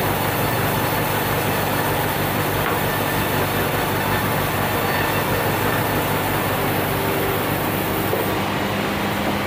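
Large sawmill band saw running and cutting a red meranti log as the log carriage rolls along its rails: a steady, dense mechanical noise over a low motor hum.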